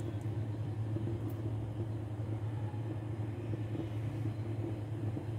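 Steady low hum of a glass-top electric hob running under a wok of heating oil.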